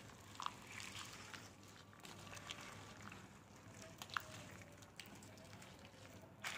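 Faint stirring of a spatula through oily citron pickle in a glass bowl, with a few light clicks of the spatula against the glass.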